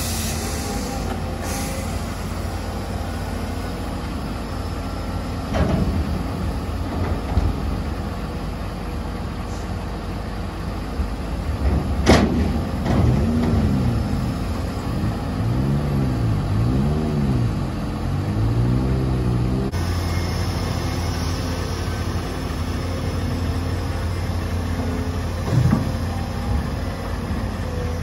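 Heavy diesel engines running steadily, with a sharp knock about twelve seconds in. Over the next several seconds the engine pitch rises and falls repeatedly under changing load.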